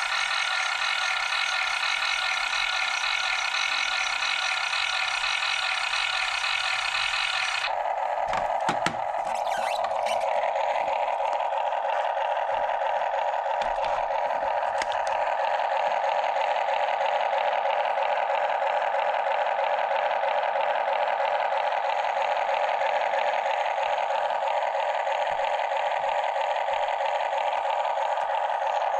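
Small electric motors and plastic gears of a 1:16 scale RC Cat 272D skid steer whirring steadily. About 8 s in the pitch changes abruptly, with a few clicks and knocks, as the machine changes what it is doing.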